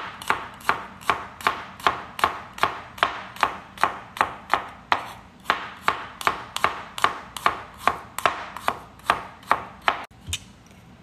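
Cleaver-style knife slicing garlic cloves on a plastic cutting board: quick, even knife strikes about four to five a second, stopping near the end.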